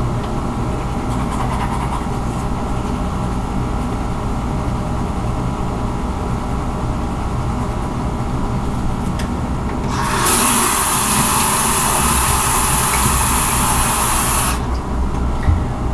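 A steady low hum throughout, with faint scrubbing from manual toothbrushing. About ten seconds in, a bathroom sink tap is turned on and runs with a loud, even rush of water for about four seconds, then is shut off abruptly.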